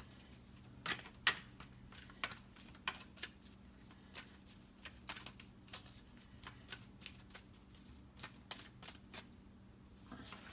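A deck of cards being shuffled by hand: a run of light, irregular flicks and snaps of the cards, with a few sharper ones in the first couple of seconds.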